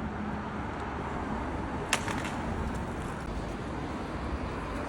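City street ambience: a steady rumble of traffic, with one sharp clack about two seconds in.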